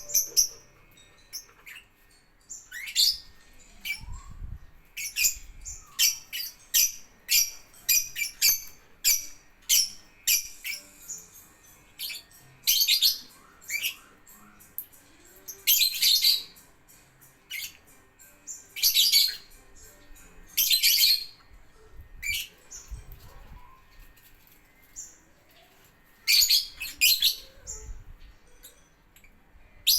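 Lovebird chattering in short bursts of rapid, high chirps, one burst every second or two.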